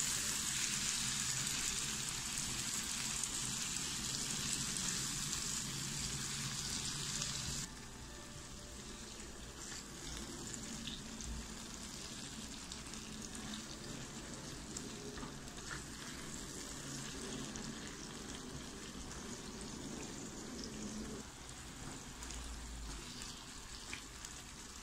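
Chopped tomatoes and onions sizzling in olive oil in a nonstick frying pan while being stirred with a silicone spatula. The sizzle drops suddenly to a quieter level about a third of the way through and stays steady after that.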